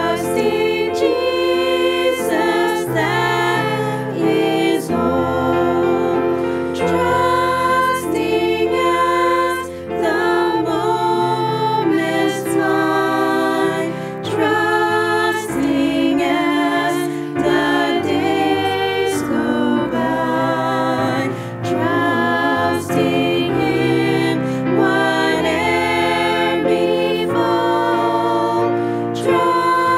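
A group of five women singing a hymn in unison over an instrumental accompaniment whose low held bass notes change every couple of seconds.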